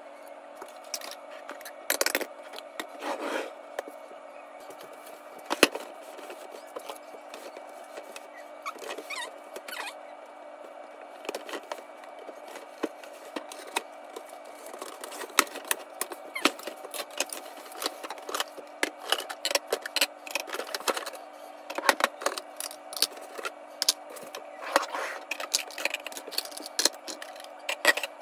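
Glass and plastic food storage containers and their snap-lock lids clicking and clacking against each other and the countertop as they are unpacked, with a cardboard box being handled and cut open with scissors. A steady hum runs underneath.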